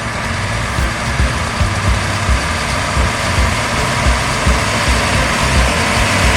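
Heavy diesel engine of a motor grader running steadily, with an uneven low throb under a broad hiss.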